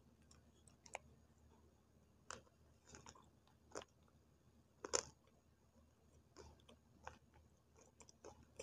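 Dry multani mitti (Fuller's earth) clay sticks being bitten and chewed close to the microphone: a scattering of short, sharp crunches, the loudest about five seconds in.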